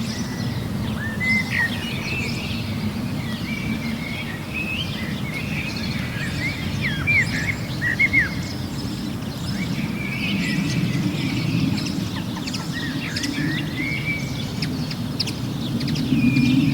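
Outdoor spring ambience: small birds chirping and singing in quick short phrases over a steady low rumble, which swells near the end.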